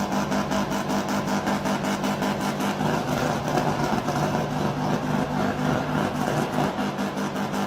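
A vehicle engine running steadily at an even pitch.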